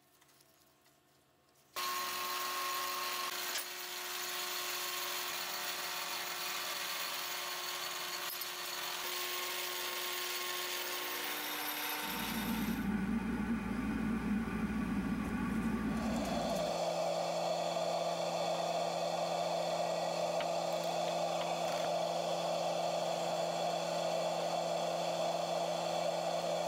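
A metal lathe starts up about two seconds in and runs steadily while machining a small brass breech cap. The steady machine noise then changes character twice, first to a low hum and then to a higher, even drone.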